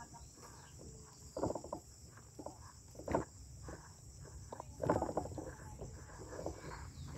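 Steady high-pitched chirring of insects in the field, with a few louder rustles and steps on the soil, about one every second and a half to two seconds.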